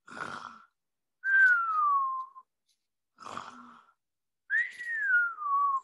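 A woman doing a cartoon-style pretend snore, twice: each time a short noisy breath in, then a whistled breath out that falls in pitch.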